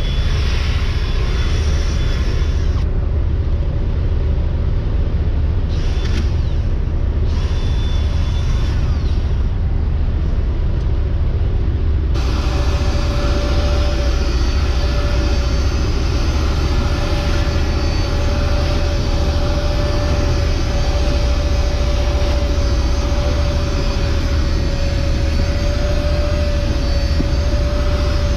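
A steady, loud low machine drone throughout. A cordless drill brush whirs for the first few seconds and briefly again around eight seconds in. About twelve seconds in, an upholstery extractor's hand tool starts up on the cloth seat, bringing in a hiss and a steady whine.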